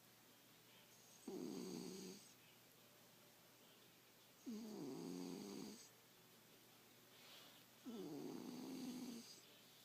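Domestic cat snoring in its sleep: three snores roughly three seconds apart, each lasting about a second, a low rasp with a faint high whistle over it, and quiet between them.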